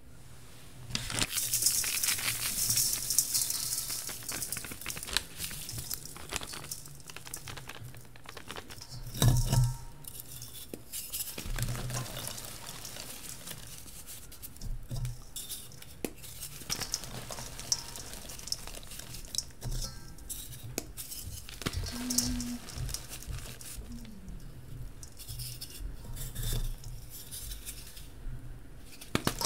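Reformed gym chalk blocks dusted with Holi powder being crushed and crumbled by hand in a stainless steel bowl: dry, gritty crunching and crackling, with chalk pieces scraping and knocking against the metal. The crushing is loudest near the start and in a burst about nine seconds in.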